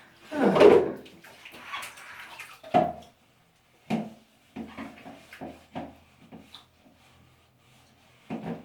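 Water splashing in a washing tub, loudest about half a second in, followed by scattered clicks and knocks of plastic Lego pieces being handled in the water.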